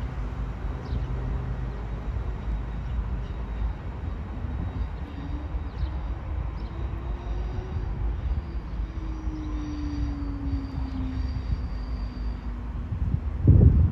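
A train running on the line with a steady low rumble, a motor tone that rises and then slowly falls in pitch, and a faint high whine in the middle. A short, loud low thump comes near the end.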